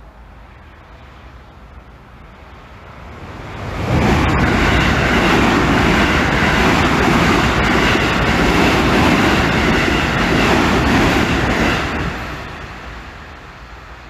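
An electric train passing through a level crossing at speed: its rumble and wheel noise rise suddenly about four seconds in, stay loud for about eight seconds, then fade away.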